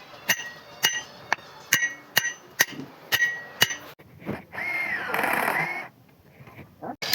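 A hammer striking steel about two times a second, each blow ringing with a metallic clang, while a truck leaf spring is worked on. Near the middle the blows stop and a louder noisy sound with a brief high whistle follows for about a second and a half.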